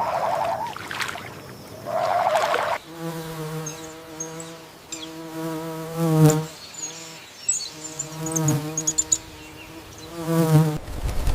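A flying insect buzzing in several passes, a steady drone that breaks off and comes back, with faint high chirps over it. Two short wavering calls come before the buzzing starts.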